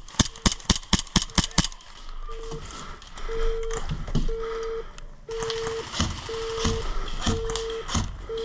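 Armed airsoft bomb prop beeping steadily, a short mid-pitched beep about once a second. A quick run of about ten sharp airsoft gun shots cracks over the first second and a half.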